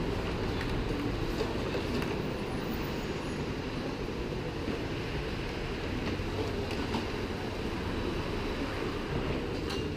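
Motorcycle engine idling steadily, a low even rumble.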